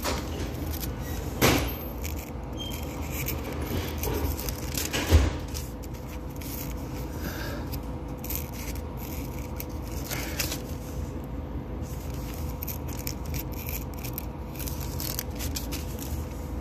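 Handling noise of a phone held close: scraping and rubbing against the microphone with scattered clicks, and two louder knocks about a second and a half and five seconds in, over a steady low hum.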